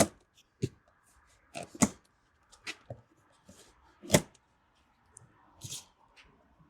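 Irregular knocks, clicks and rustles of packaging and parts being handled while unboxing an e-bike. The sharpest knocks come right at the start, just under two seconds in and about four seconds in, with a short rustling hiss nearer the end.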